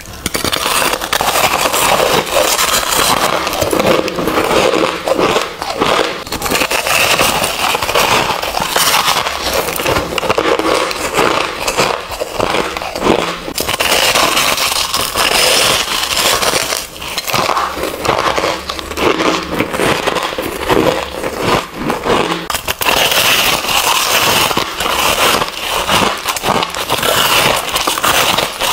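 A block of compacted crushed ice being bitten and chewed: a steady stream of crunching and crackling.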